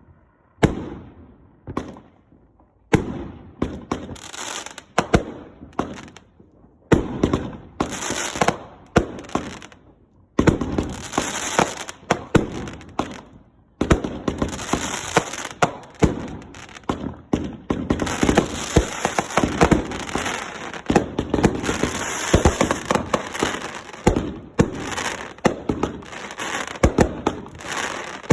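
A consumer firework cake firing: a string of sharp bangs with crackle. The shots come singly, with short gaps, at first, then turn into near-continuous firing and crackling for the second half.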